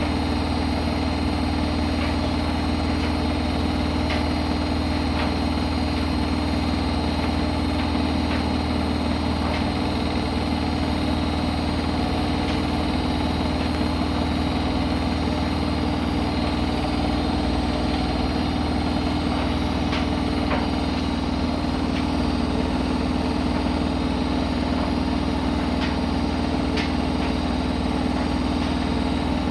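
Siemens iQ300 front-loading washing machine running at a steady speed: an even motor hum and drone, with a few faint ticks.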